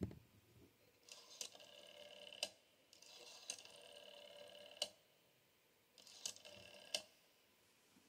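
A rotary telephone dial being dialed. The handset is lifted with a click at the start, then come three digits, each a whirr of one to two seconds as the dial runs back, ending in a sharp click. This sends the number as dial pulses.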